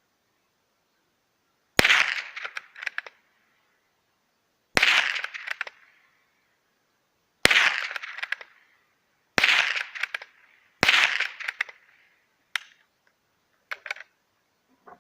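Five shots from a Stirling Model 14P .22 bolt-action rifle, fired one at a time about two to three seconds apart, which empties its five-shot magazine. Each shot is followed by quick clicks of the bolt being worked, and a few fainter clicks come near the end.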